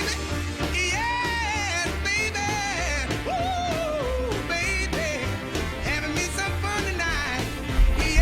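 Background music: a rock song with a sung vocal line over bass and drums.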